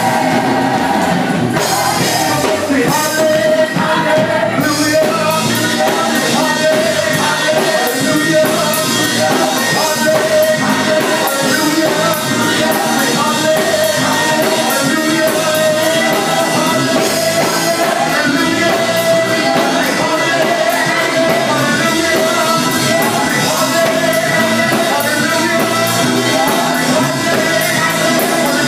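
Gospel group singing live into microphones over steady, loud musical accompaniment.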